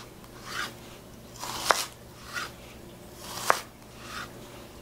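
Chef's knife slicing down through an onion on a cutting board: a soft rasp as the blade goes through, then a sharp tap of the blade hitting the board, twice, just under two seconds apart.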